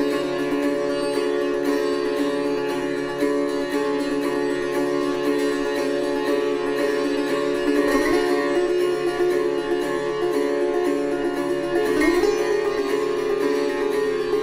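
Sitar playing raag Puriya in Hindustani classical style, plucked in rapid, even strokes while its strings ring on steadily.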